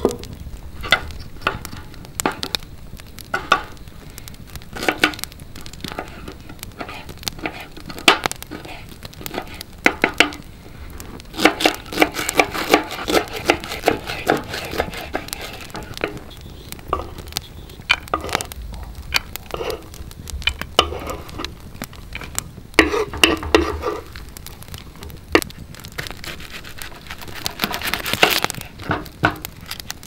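Folding knife cutting food on a wooden cutting board: scattered cuts and knocks, a run of quick chopping strokes through leafy greens midway, and peeling near the end, with a wood fire crackling alongside.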